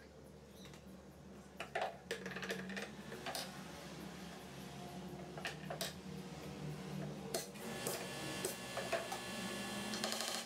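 Irregular light clicks and clattering of small hard objects being handled, over a faint low hum.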